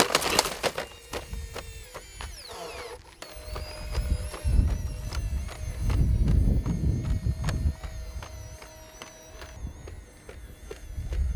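Boston Dynamics Spot quadruped robot walking under its own power: a steady mechanical whine from its hydraulic drive, with irregular thuds, scuffs and clicks of its legs and feet striking the ground, coming in louder bursts as it scrambles and climbs.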